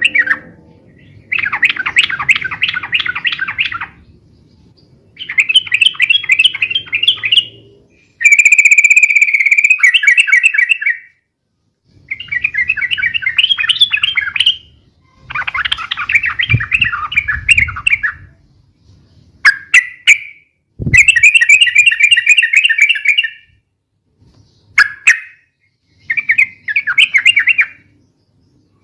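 Yellow-vented bulbul (trucukan) calling in loud, rapid, bubbly chattering phrases of two to three seconds each, repeated with short pauses between.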